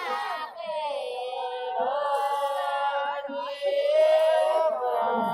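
A group of women singing a Shekhawati (Rajasthani) folk song together without accompaniment, several voices holding long, wavering notes in unison.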